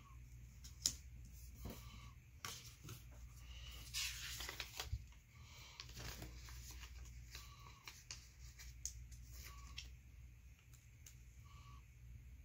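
Paper and sticker handling: light taps and rustles as stickers are peeled and pressed onto planner pages, with a sharp tap a little under a second in and a longer paper rustle about four seconds in as the sticker pad pages are leafed through.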